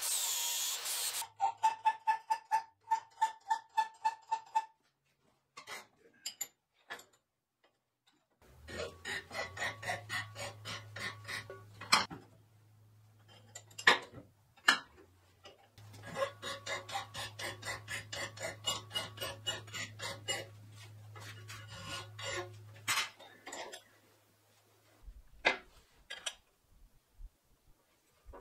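MIG welding: two runs of dense crackle lasting about six and seven seconds, over the welder's steady hum, which rises while the arc burns. Before them come a short loud burst and a few seconds of quick, regular clicks.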